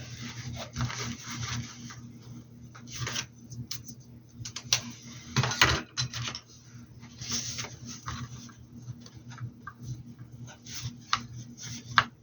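Paintbrush rubbing and scrubbing paint onto a hat: irregular scratchy strokes, one sharp click near the end, over a steady low hum.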